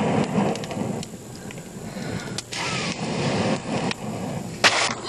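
A man blowing hard on a small wood cooking fire, his breath rushing into the flames, which rumble and crackle in fits. A loud sharp crack near the end, taken for an oyster shell in the fire.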